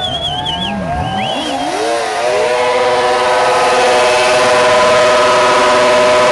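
Motorcycle engines revving up and down, with a high wavering tone over them at first. About two seconds in, one engine is held at full throttle in a steady high-pitched drone that grows louder.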